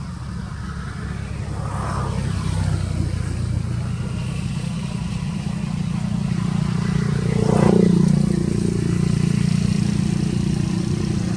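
Low, steady rumble of a motor vehicle engine, growing louder and peaking about eight seconds in.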